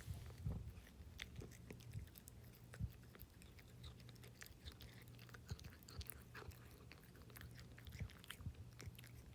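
A cat eating treats: faint, irregular chewing with many small clicks of teeth and food.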